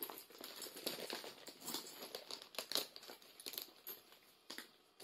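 Handling noise of bag charms being hooked onto a small wallet: rustling and many light, irregular clicks and clinks of metal clasps and chain hardware.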